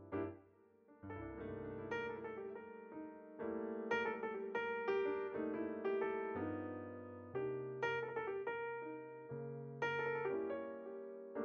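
Background piano music: struck notes and sustained chords over a low bass line.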